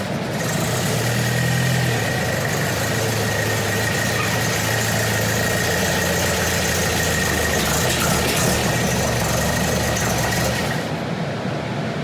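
A 1962 Volvo Amazon's freshly rebuilt B20 four-cylinder engine with twin SU carburettors running slowly as the car creeps forward, with a steady high whine over it. Near the end the hissy top of the sound drops away.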